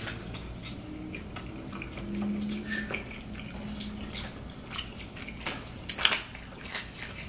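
Metal forks tapping and scraping against food trays, with scattered chewing and mouth sounds of eating. A few sharp clicks about six seconds in are the loudest.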